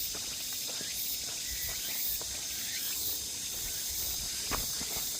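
Insects buzzing steadily in summer woodland, a high, even drone with a faint pulsing, with a few soft footsteps on a dirt trail.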